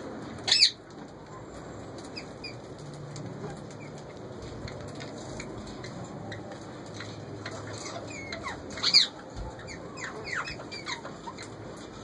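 Indian ringneck parakeets calling in a breeding cage: a loud, sharp, high screech about half a second in and another about nine seconds in. A run of short falling chirps sits around the second screech.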